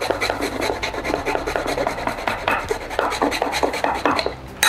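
Fresh ginger root being grated on a flat metal rasp grater: repeated quick scraping strokes of the root across the teeth.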